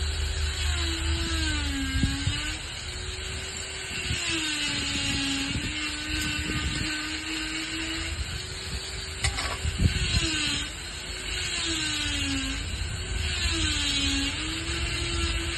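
Power grinder with a cutting disc cutting stone: a steady motor whine over gritty grinding noise, its pitch dipping and recovering several times as the disc bites into the stone under load. There is a sharp click about nine seconds in.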